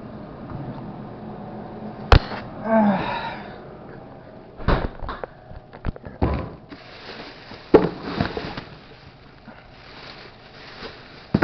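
Food containers knocking and clattering as they are pulled from a fridge and thrown out, with a sharp click about two seconds in, a brief pitched squeak just after, and plastic rustling through the second half.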